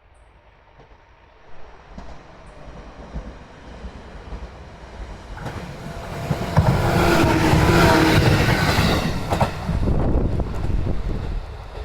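Electric train passing close by on the Hakubi Line, wheels clattering over the rails. It builds to its loudest about two-thirds of the way through, with a steady whine on top, then starts to fade near the end.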